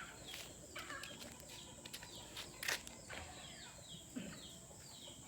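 Birds chirping: a string of short, quick falling chirps, repeated many times and thickest in the second half, with a few sharp clicks, over a steady high-pitched hum.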